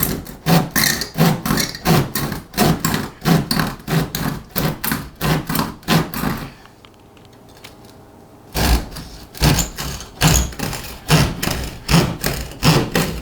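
Rapid knocking on a drywall wall, about two or three knocks a second, stopping for a couple of seconds midway and then resuming: sounding the wall to locate a stud by ear.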